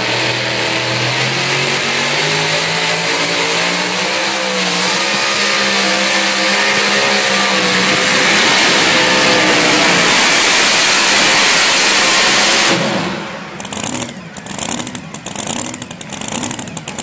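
Pickup truck engine at full throttle, revving hard under heavy load as it drags the weighted pull sled down the track. It grows a little louder partway through, then drops off abruptly about 13 seconds in, leaving lower, uneven noise.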